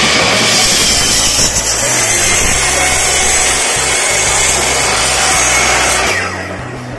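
Electric mitre saw cutting through a wooden plank: a loud, steady cutting noise that fades away about six seconds in.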